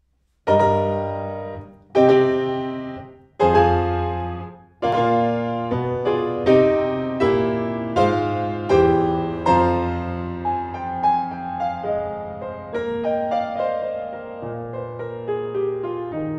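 Piano playing a slow classical introduction: four loud chords, each struck and left to die away, then a steadier series of chords about every three quarters of a second, gradually growing softer.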